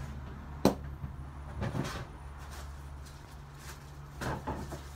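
Kitchen handling sounds: a sharp knock a little under a second in, then softer clatter and rustling twice more, over a steady low hum.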